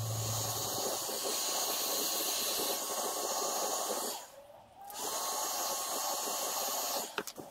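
Handheld electric heat gun running, its fan blowing a steady hiss of hot air onto a Mini wheel arch to soften it for fitting. The sound dips briefly about halfway through and cuts off near the end with a click or two.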